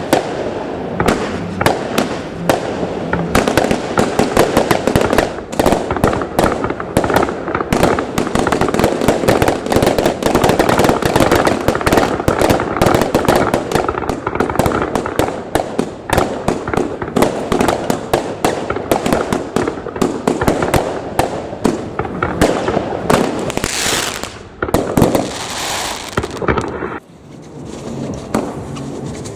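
Fireworks firing in a dense, rapid run of bangs and crackles. Near the end there are a couple of hissing whooshes, then the barrage stops suddenly and only lighter crackling is left.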